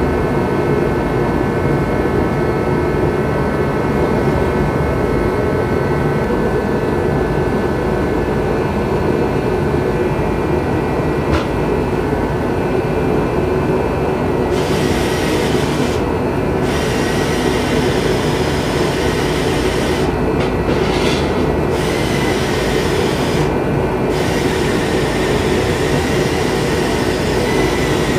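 Forge running with a steady, even rushing noise that keeps the same level throughout, with faint high tones over it.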